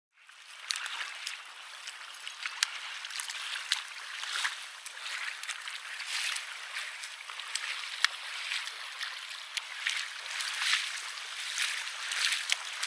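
Water lapping and splashing at the water's edge: a steady wash with frequent small slaps and splashes.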